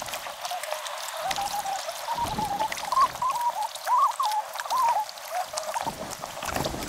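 Fast-forwarded audio of kayaking on a river: trickling and pouring water from paddling, over a string of short, wavering squeaky tones made high-pitched by the speed-up.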